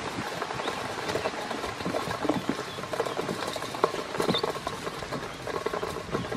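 Ducklings pecking and dabbling at feed in a stainless steel bowl: a rapid, uneven patter of small bill taps and clicks on the metal.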